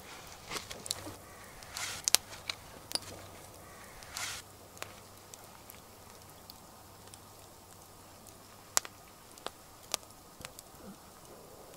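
Wood fire burned down to coals, crackling with scattered sharp pops, and a couple of short rustling noises in the first few seconds.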